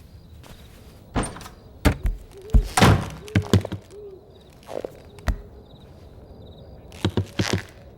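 Animated-film sound effects: a series of thuds and knocks in clusters. The loudest come between two and four seconds in, with a few more near the end.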